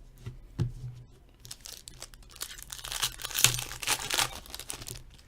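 A foil trading-card pack wrapper crinkling and tearing as it is opened by hand, loudest about three to four seconds in, after a light tap near the start.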